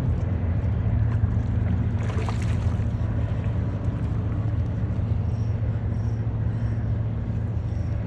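Car ferry's engines humming low and steady as the vessel passes, with a brief hiss about two seconds in.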